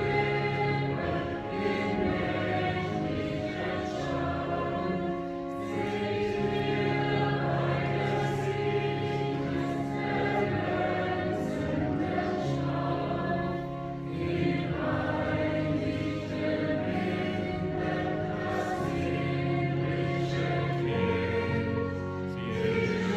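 A choir singing a hymn in held, sustained notes, with the melody moving from chord to chord.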